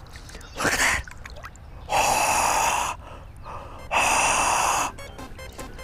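Two loud gasps for air, each about a second long and about two seconds apart, after a shorter one near the start, with a quick run of fine ticks near the end.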